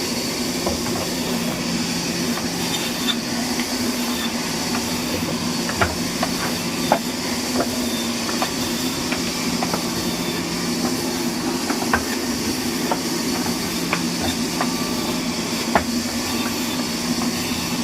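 A machine running steadily, with a low drone, a thin high whine, and scattered, irregular sharp clicks and knocks.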